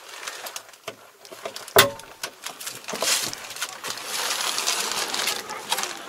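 Tractor cab door latch releasing with one sharp knock, then the door swinging open, letting in a hiss of outdoor noise, with small clicks and knocks of someone climbing out of the cab.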